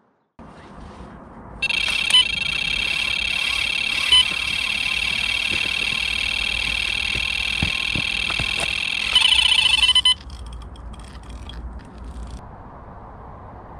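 Carp bite alarm sounding one continuous electronic tone as a fish takes line on a run, a take. It starts just under two seconds in, shifts in tone shortly before it cuts off about ten seconds in.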